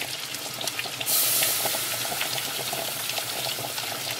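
Water running from a kitchen tap, coming in as a sudden full rush about a second in, with scattered light clicks throughout.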